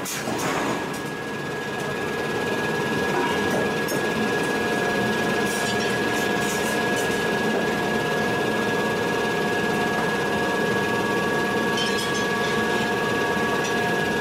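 Steady machinery running with a fast rattle, with a high steady whine and, from about halfway, several further whining tones.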